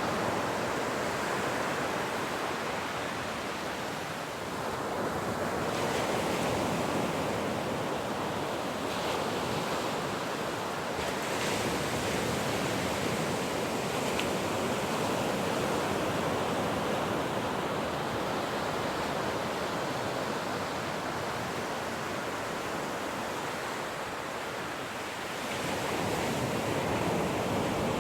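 Ocean waves breaking and washing in continuously, the surf swelling and easing every several seconds.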